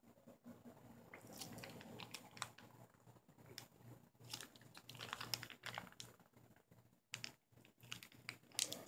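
Faint, irregular crinkling and clicking of a plastic ranch dressing packet squeezed by hand.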